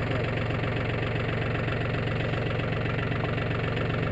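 Compact front-loader tractor engine idling steadily with an even low hum.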